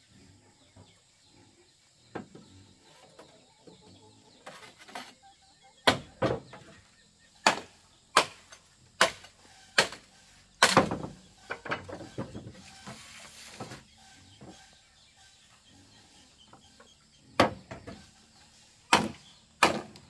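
Machete chopping into a green bamboo pole: sharp hacks, about one a second in a run of eight or so, then a pause and three more near the end.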